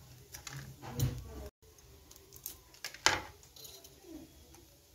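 Fork and metal skewer clinking and scraping against a plate as grilled paneer tikka pieces are pushed off the skewer, with two sharper clinks, about a second in and about three seconds in.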